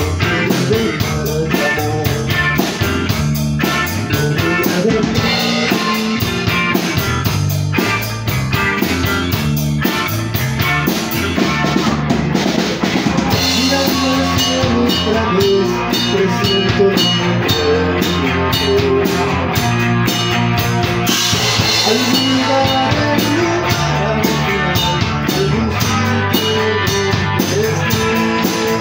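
Rock band playing live: a drum kit keeping a steady beat under electric guitars and a bass guitar.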